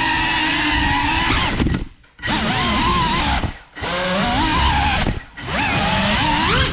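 Whine of a CineLog35 ducted cinewhoop's brushless motors and propellers, wavering in pitch as the throttle shifts. Three times the whine nearly cuts out and then climbs steeply in pitch as the throttle is punched again.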